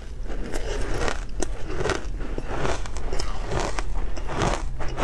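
Ice being bitten and chewed close to a clip-on microphone: a run of irregular crunches and crackles as the frozen pieces break between the teeth.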